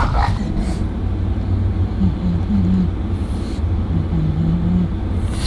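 Car engine and road noise heard from inside the cabin: a steady low rumble, with a low hum that holds briefly twice.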